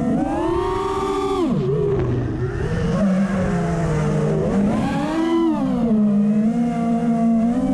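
FPV racing quadcopter's brushless motors whining as it flies. The pitch rises briefly, then drops sharply as the throttle is cut about two seconds in. It climbs again about five seconds in and settles back to a steady hum.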